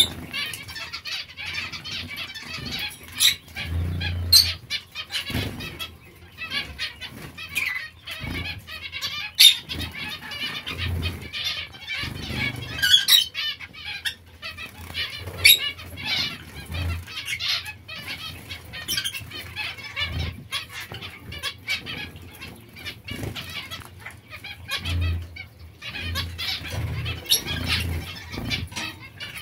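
Zebra finches bathing in a shallow water dish: repeated splashing and wing fluttering in the water, with frequent short chirping calls from the flock.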